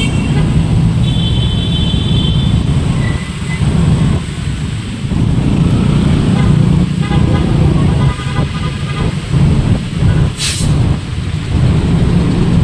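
Dense motorcycle and truck traffic heard from a motorcycle in slow traffic: a steady low rumble of engines, with short horn toots about a second in and again around seven to nine seconds in. A brief hiss sounds near the end.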